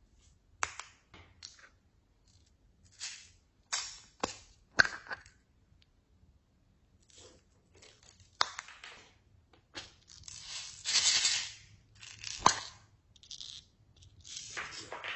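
Slime being mixed and squished by hand, giving irregular sticky crackles and sharp pops, with a longer crackling stretch a little past the middle.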